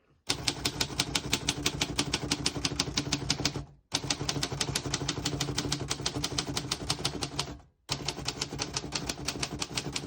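Typing on a 1938 Royal O Model manual portable typewriter: a fast, even run of key strikes, about nine a second, that stops abruptly twice for a moment and then resumes.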